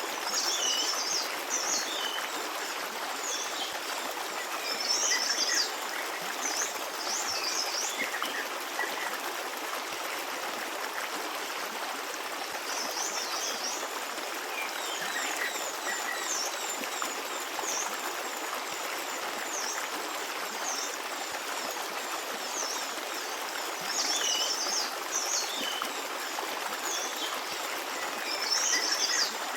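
Forest stream running steadily, with small birds chirping in short, high bursts above it, several times through, loudest about five seconds in and near the end.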